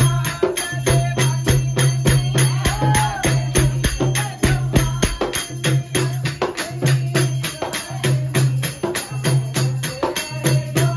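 Devotional kirtan music: a fast, even beat of jingling hand percussion with hand claps and a repeating low drum pulse.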